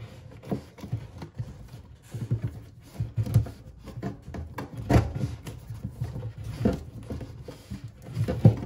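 Yellow plastic-sheathed electrical cable being pulled hand over hand through a hole cut in a plywood cabinet back: irregular rubbing and scraping, with a few sharper knocks.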